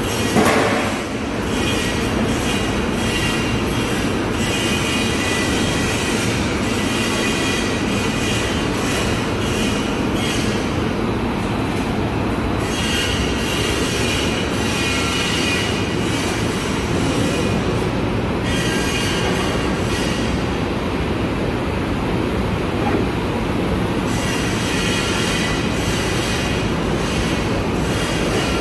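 Industrial 200–500 L mixer unit with its water chiller running: a steady, loud machine noise with a high whine that fades in and out several times.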